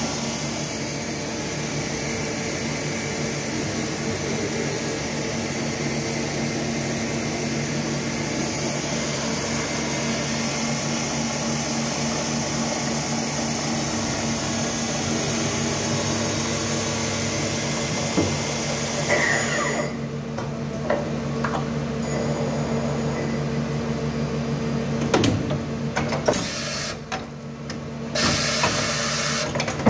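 Okuma MC-5VA vertical machining centre running, a steady machine hum with a high hiss that cuts off about two-thirds of the way through. Near the end come several sharp clunks and clicks as the tool changer arm swings a tool to the spindle.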